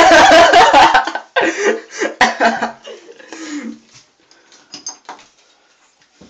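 A loud, distorted vocal outburst, a shout or yell, with handling and scuffling noise over the first few seconds. Faint clicks and rattles from a chrome door knob being gripped and turned follow.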